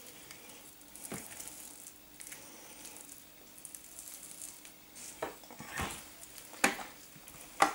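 Quiet handling sounds of gloved hands lifting a soft, lard-greased rope of dough and laying it onto a silicone-lined baking tray, with several short taps, the loudest near the end.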